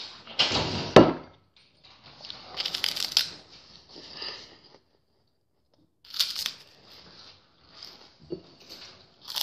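Crunchy food being bitten and chewed close to the microphone, in irregular crackly bursts. A sharp knock comes about a second in.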